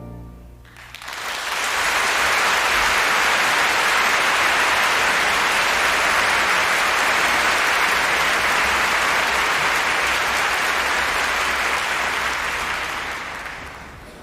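A concert audience applauding. The orchestra's last note dies away at the very start, the applause swells about a second in, holds steady, and fades out near the end.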